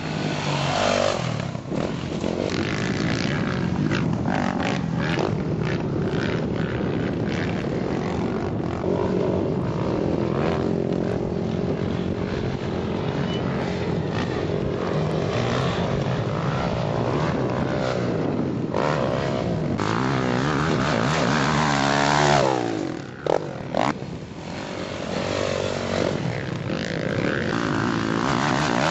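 Motocross dirt bike engine running hard on a dirt track, its pitch climbing and falling as the rider accelerates, shifts and backs off. The sound drops briefly with a few sharp spikes about three quarters of the way through, and climbs again near the end, with a second bike also on the track.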